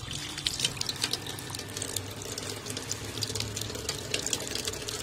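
Water running from a tap and splashing over hands into an aluminium pot, a steady rush with small crackling splashes.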